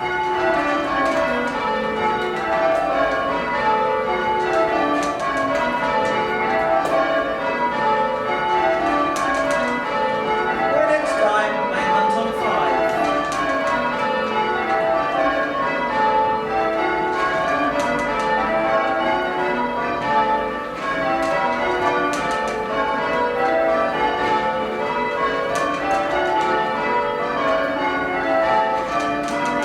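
Blackburn Cathedral's full-circle church bells being change rung: strike follows strike in an even rhythm, the bells sounding in descending runs whose order keeps shifting as the changes are rung.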